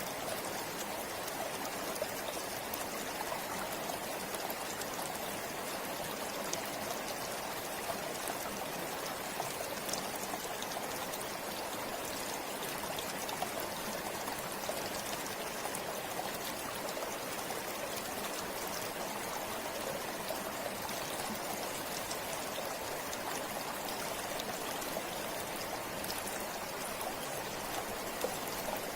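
Shallow forest river flowing over stones, a steady rushing babble with small splashes and trickles.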